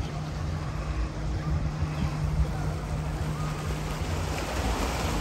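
Waves washing on a beach, with wind buffeting the microphone and a steady low hum underneath.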